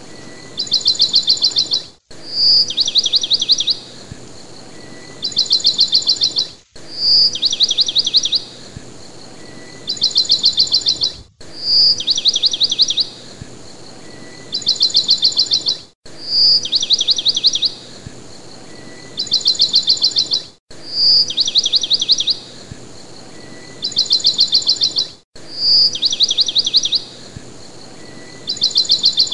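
Looped birdsong recording: a single sharp chirp followed by a rapid trill, then a second trill, the same phrase repeating exactly about every four and a half seconds with a brief dropout between repeats.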